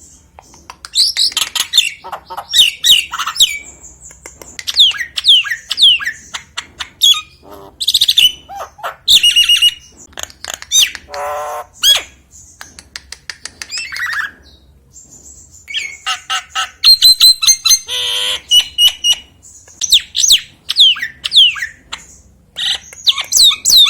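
Nias hill myna singing in full voice: quick runs of loud, sharp falling whistles mixed with clicks and harsh squawking notes, broken by a couple of short pauses.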